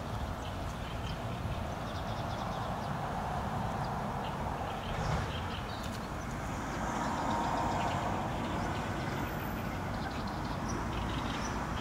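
Steady low outdoor rumble throughout, with faint scattered ticks. A common moorhen splashing across the pond water adds a stretch of splashing about six to eight seconds in.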